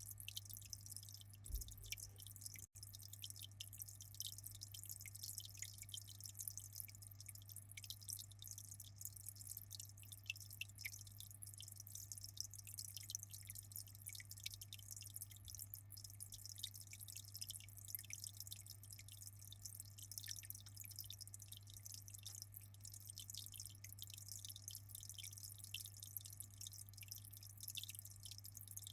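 Faint aquarium water trickling and dripping, a dense crackle of fine drops and small splashes, over a low steady hum.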